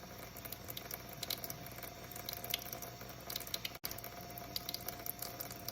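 Wet squishing, dripping and splashing of water as grime is handled and rinsed out of a dirty dishwasher, with scattered small clicks and a momentary dropout about four seconds in.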